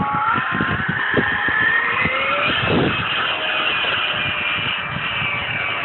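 Electric ducted fan of an RC jet (Stumax 110-45 fan driven by a Neu 1525 motor) making a fast low pass: a high whine over a rush of air, its tones sliding in pitch as it goes by.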